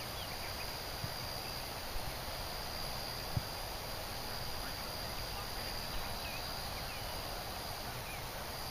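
Outdoor ambience: a steady high insect drone that breaks off briefly near the end, over a low rumble, with a few faint knocks, the clearest about three and a half seconds in.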